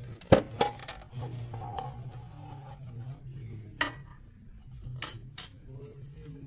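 Lid of a metal tin watch box being prised off by hand: two sharp metallic clicks as it comes free, then scraping and rubbing of the tin, with a few lighter clicks later on.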